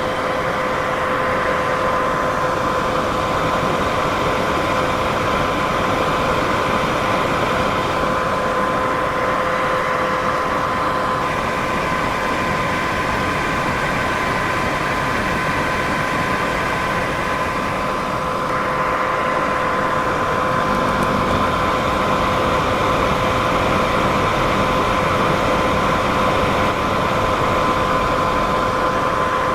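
Steady white noise for sleep: an even, unbroken hiss with a steady mid-pitched tone running through it.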